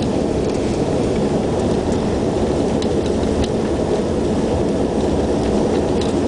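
Steady engine drone and runway rumble of a Saab 2000 turboprop airliner rolling along the runway after landing, with its Allison AE 2100 turboprops and propellers heard from inside the cabin.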